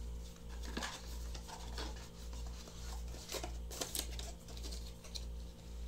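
Small cardboard product boxes being handled and opened: scattered light taps, scrapes and rustles, a cluster of sharper clicks about three to four seconds in. Underneath runs a low hum that pulses about one and a half times a second.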